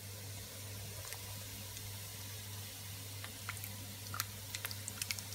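Faint sizzling hiss from a pan of browned ground beef and vegetables, with scattered light clicks that come more often near the end, over a low steady hum.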